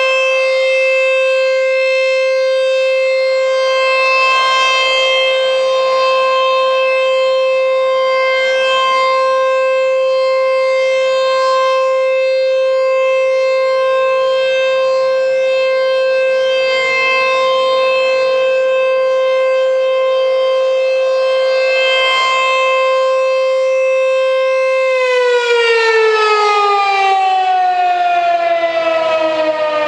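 American Signal T-128 electromechanical outdoor warning siren sounding a steady tone during its monthly test, swelling slightly in loudness about every four seconds. About 25 seconds in it begins to wind down, its pitch falling smoothly as the rotor slows.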